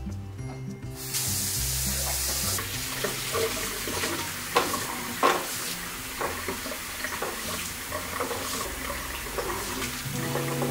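Kitchen tap water running into a sink, starting about a second in, as green plums are rinsed in a plastic colander, with several sharp knocks as the fruit is handled and tumbles against the colander.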